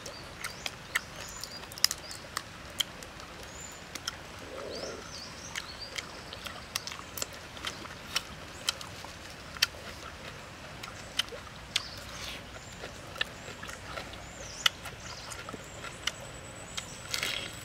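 Sharp, irregular clicks and crackles of grilled prawn shells being cracked and peeled apart by hand, with faint bird chirps in the background.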